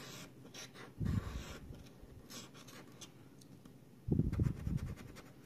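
Scratching the latex coating off a scratch-off lottery ticket: short, repeated rasping strokes. Two low muffled sounds, about a second in and about four seconds in, are louder than the scratching.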